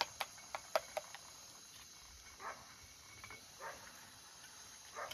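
A spoon clinking several times against a small metal bowl in the first second, then two soft muffled sounds, and a clatter just before the end as a pot lid is handled.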